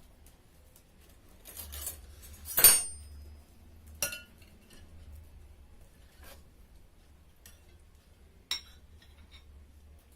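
Cutlery and dishes clinking at a meal: spoons knocking and scraping on plates and bowls. One loud ringing clink comes about two and a half seconds in, followed by a few fainter clinks.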